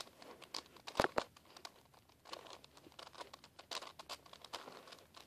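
Plastic 4x4x4 Rubik's cube being turned by hand: short clicks and scratchy rattles of its layers snapping round, with the sharpest click about a second in.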